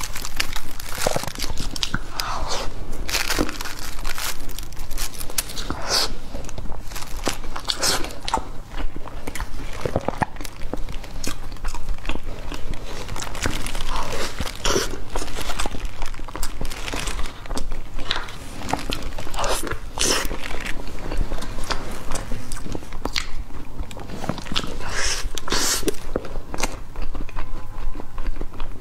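Close-miked biting and chewing of egg tarts: repeated irregular crunches of the pastry crust and wet mouth sounds of chewing.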